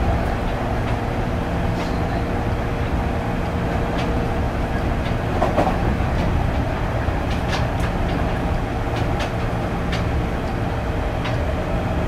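Running sound inside the motor car of a JR East 205 series 5000 subseries electric train, which has Toyo IGBT-VVVF traction equipment, under way at speed. A steady wheel-on-rail rumble carries a steady hum, with occasional sharp clicks.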